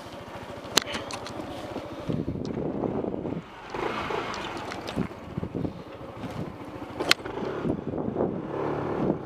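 Motorcycle engine idling with even low pulses, then pulling away and riding slowly off, with wind buffeting the microphone. Two sharp clicks, one about a second in and one near seven seconds.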